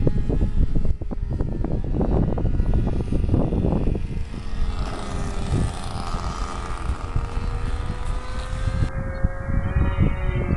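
Radio-controlled Piper Cub model's .40-size glow engine running in flight overhead, a steady whine that rises slowly in pitch from about halfway through. Wind buffets the microphone in the first few seconds.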